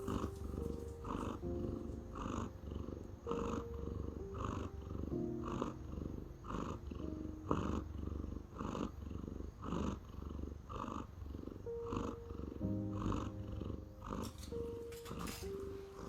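Pet cat purring close to the microphone, an even rhythmic purr that swells and fades about once a second with each breath, over soft background music.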